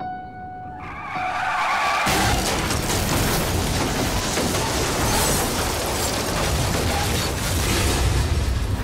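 Car tyres screech in a skid from about a second in. A violent car crash follows about two seconds in: many crunching impacts over a heavy rumble, the sound of the car tumbling off the road, going on for about seven seconds.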